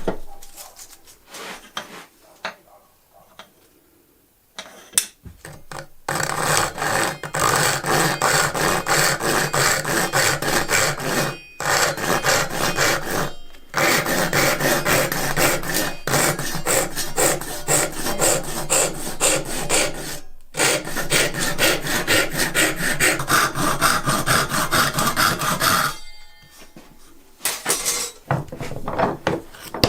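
A hand tool working wood in quick back-and-forth strokes, kept up for about twenty seconds with a few short breaks. Before it there are some scattered knocks on wood.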